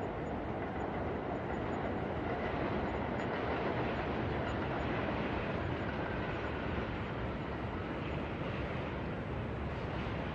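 New York night city ambience: a steady low rumble of vehicle noise with no distinct events.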